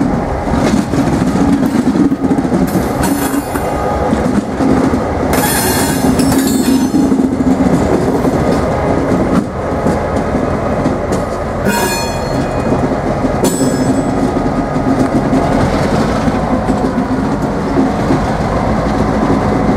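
CSX diesel locomotive passing close at low speed: the engine runs steadily and the wheels clack over rail joints, with brief high wheel squeals.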